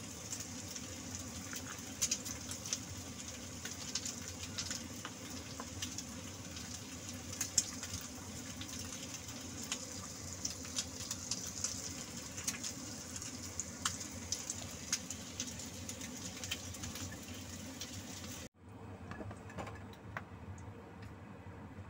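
Fish and vegetable broth boiling in a pot: a steady bubbling hiss with scattered small pops, and light knocks of a wooden spoon stirring. It cuts off abruptly about eighteen seconds in, leaving quieter kitchen sounds with faint clicks.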